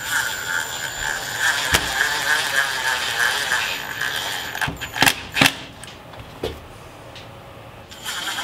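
Cordless drill running at a steady speed into a vinyl screen-door frame, drilling new screw holes. The whine stops about four and a half seconds in and is followed by a few sharp clicks and knocks. The drill starts up again near the end.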